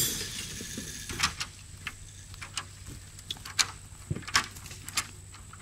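A sudden thump at the start, then scattered sharp clicks and knocks at irregular intervals.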